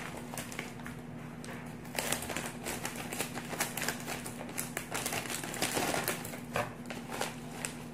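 Plastic snack bag of Aircorn corn puffs crinkling and rustling as it is handled and opened: a dense, irregular run of crackles.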